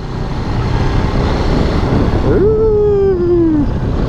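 Yamaha WR250X single-cylinder motorcycle engine running at a steady cruise, with wind rushing over the helmet camera. About two and a half seconds in, a drawn-out high tone sounds over it and falls slowly in pitch for about a second.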